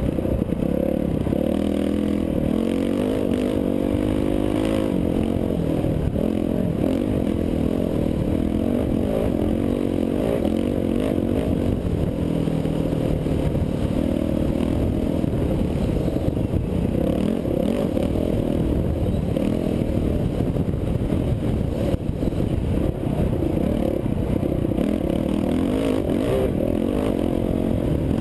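Dirt bike engine running on the throttle while riding a dirt trail, its pitch rising and falling with throttle and shifts, with clatter from the rough ground.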